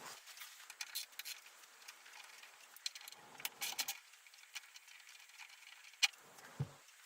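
Metallic clicking and clinking of hand tools working on a motorcycle's front brake caliper bolts, in short clustered runs, with a sharp click about six seconds in and a dull knock just after.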